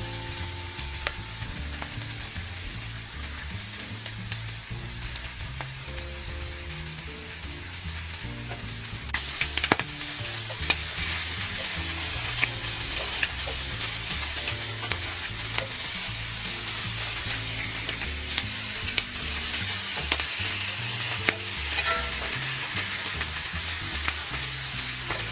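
Food sizzling and frying in a pan, with a utensil stirring and clicking against it; the sizzle grows louder about nine seconds in. Background music plays underneath.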